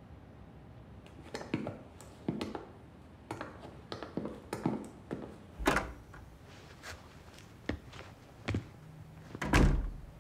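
A run of about a dozen irregular knocks and thuds, ending in the loudest, deepest thump near the end.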